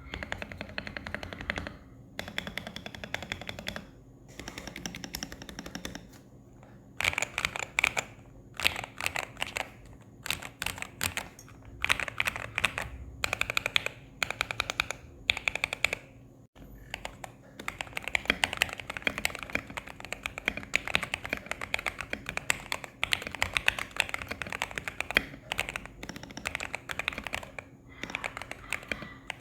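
Typing on an RK61 mechanical keyboard with JWK Red linear switches: fast, dense keystroke clatter in runs, broken by a few short pauses.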